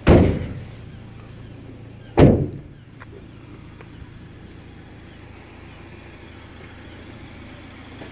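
Two loud slams about two seconds apart, each ringing down briefly, like the Ford Transit van's metal doors being shut, over the steady low hum of the running van.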